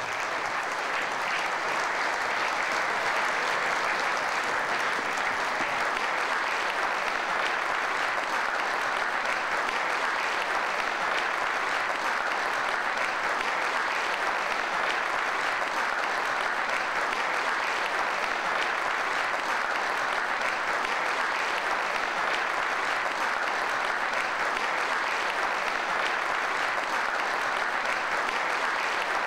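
Audience applauding steadily and at an even level throughout, a dense, continuous clapping.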